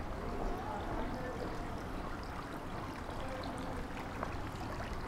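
Steady city street ambience: a low rumble and an even hiss, with faint distant voices and a few light ticks.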